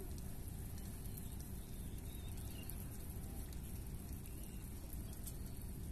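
Steady low outdoor background rumble with a faint hiss over it, even throughout, with no distinct event.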